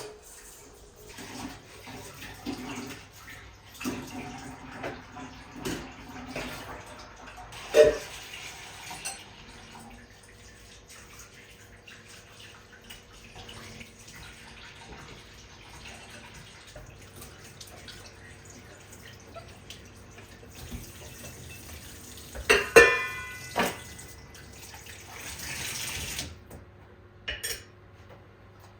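Kitchen work: dishes and utensils knocking and clinking, with a sharp clink about eight seconds in and a ringing metallic clatter past twenty seconds, and water running from a tap for a few seconds near the end.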